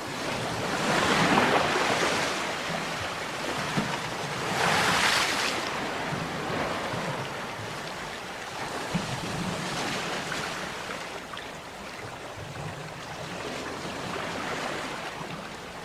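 Sea waves breaking on a shore, with a louder wash about a second in and another about five seconds in, then smaller surges, over a steady rush of surf.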